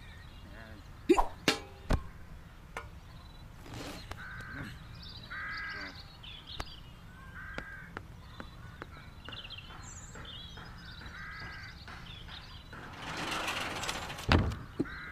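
Short bird calls, crow-like caws, repeated about four times a couple of seconds apart. A few sharp knocks come in the first two seconds, and near the end a rushing swell ends in a loud thud.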